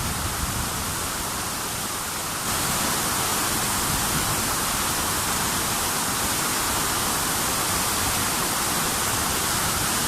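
Steady rushing of the Tamul waterfall, getting a little louder about two and a half seconds in.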